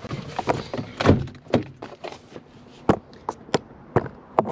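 Camper van door and fittings being handled: a run of sharp knocks and clunks about two a second, the loudest about a second in.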